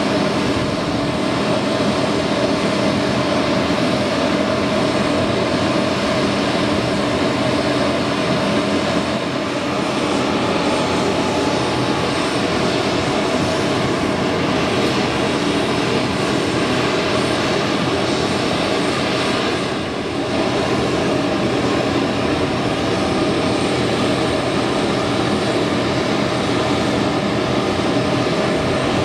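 Steady drone of a parked Bombardier CRJ-200's auxiliary power unit running before the main engines are started, a constant whine with several held tones.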